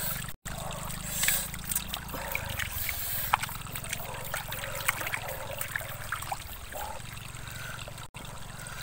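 Hands patting and smoothing wet mud in shallow water: many small irregular squelches and splashes, with water trickling.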